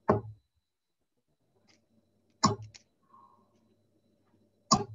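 Three steel-tip darts striking a Winmau Blade bristle dartboard one after another, each a sharp thud, spaced about two and a half seconds apart.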